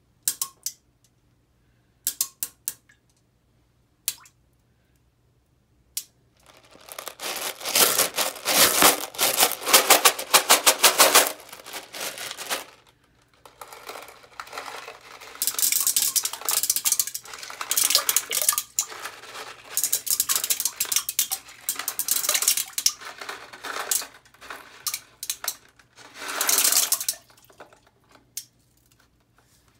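Hard Runts candies falling into toilet bowl water: a few single plinks at first, then candies poured from the box in two long spells of dense clicking and splashing.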